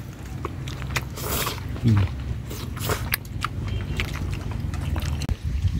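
Meal sounds: scattered light clicks and knocks of chopsticks and bowls over a steady low rumble, with a brief low grunt about two seconds in.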